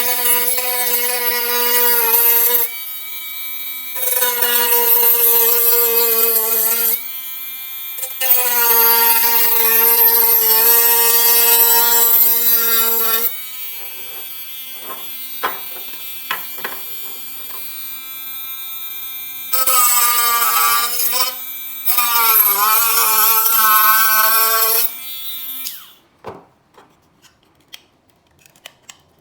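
Small handheld electric motor tool, such as a rotary tool, running with a steady high whine. It is pressed into the work in several passes, growing louder in stretches and dipping in pitch under load, then switches off near the end, leaving a few faint clicks.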